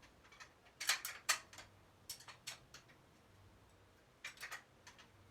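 Irregular light clicks and ticks from a bicycle being worked on by hand, coming in small clusters.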